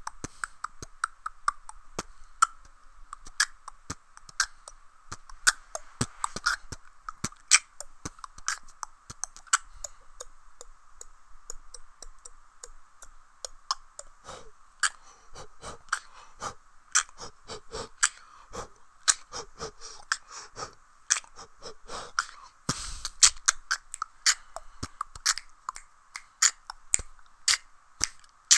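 Solo beatboxing: a fast, uneven run of sharp, mouth-made percussive clicks, kicks and snares.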